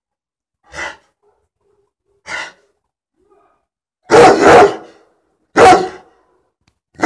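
A Dogo Argentino barking. Two soft huffs come first. Then, from about four seconds in, loud barks: a quick pair, another a second later, and one more starting at the very end.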